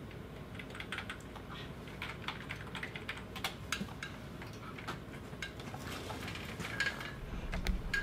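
Irregular key clicks on a computer keyboard over a steady low hum, stopping abruptly at the end.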